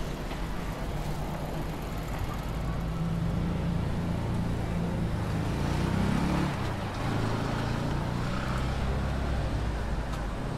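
Road traffic with a motor vehicle's engine humming close by; its pitch rises and falls back about halfway through.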